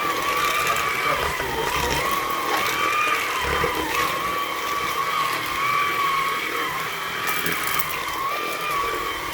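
Hoover ONEPWR Blade cordless stick vacuum running, a steady high motor whine that wavers slightly in pitch, with scattered clicks and rattles of debris being picked up.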